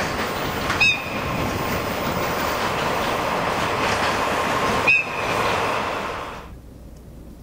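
Container freight train hauled by a DD51 diesel locomotive rolling along curved track: a steady rumble of wheels on rail, with two brief sharp squeals about four seconds apart. The sound drops away suddenly near the end.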